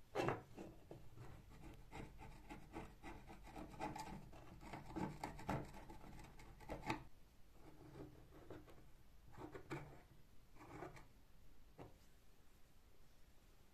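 A sharp knock right at the start, then a flathead screwdriver scraping old black grime out of a rusty bike pump's end cap in short scratchy strokes, with a pause about halfway.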